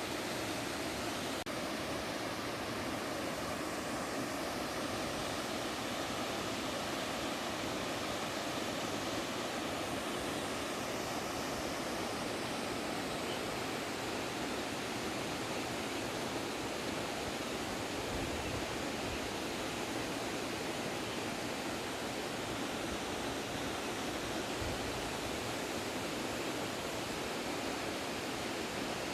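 Waterfall rushing: falling water giving a steady, unbroken roar of white noise.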